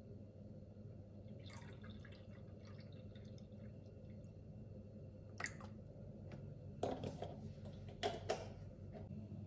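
Milk pouring from a carton into a bowl in a faint, steady trickle over a low steady hum, with a few short knocks in the second half as the pouring stops.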